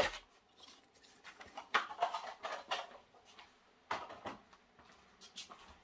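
Clear plastic model-train packaging being handled: a sharp plastic click at the start, then scattered light clicks and rustles.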